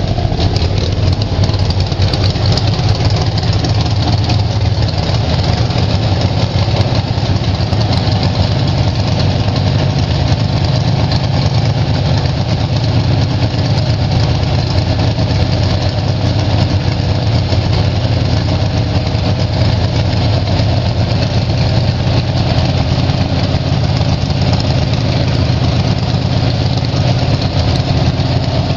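Dragster engine idling steadily with a deep rumble, held at one speed without revving.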